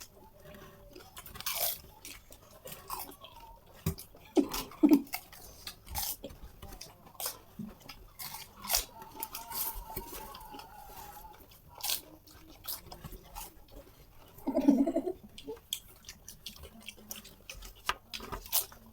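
Several people biting and chewing crisp panipuri (fuchka) shells, a run of irregular crunches and chewing. A brief voice sound near fifteen seconds in.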